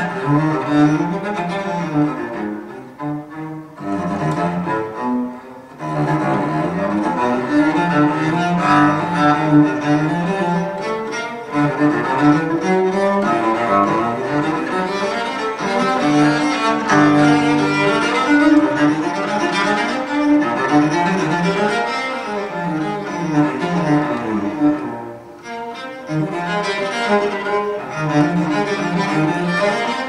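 Music, mostly bowed strings with low sustained notes, played back through the Natural Sound field coil loudspeakers (15-inch Maxonic field coil driver and compression tweeter) at listening volume. It eases off briefly a few seconds in and again near the end.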